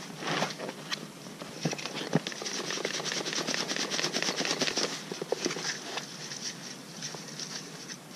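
Hands mixing and rubbing fish-feeding groundbait in a bait bowl: a dense, gritty rustling and crackling of many small clicks, busiest in the middle.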